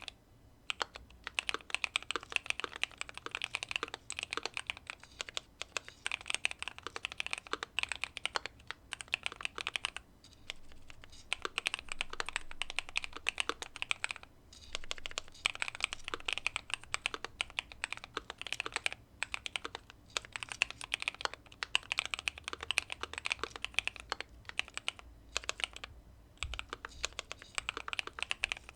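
Keychron Q2 mechanical keyboard with factory-lubed Pearl Lemon switches, tape mod and case foam, being typed on steadily in quick runs of keystrokes, with a few brief pauses.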